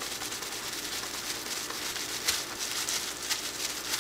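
Thin plastic gloves and a plastic sheet crinkling and rustling as hands rub dye into a wet cotton yarn skein, with a couple of sharper crackles about two and three seconds in.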